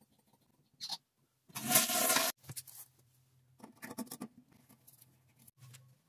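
Short bursts of handling noise from work on a toilet, starting with the water supply valve behind it being turned off: a loud rush of noise lasting under a second about two seconds in, then scattered clicks and scrapes, over a low steady hum.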